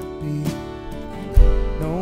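Worship song music with acoustic guitar strumming over sustained notes; a deep, loud bass hit lands about one and a half seconds in.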